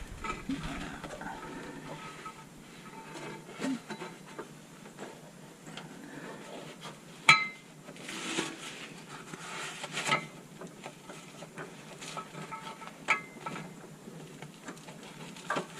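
Light metallic clinks, rattles and scrapes of steel parking brake cable ends and fittings being hooked together by hand, with one sharper ringing clink about seven seconds in.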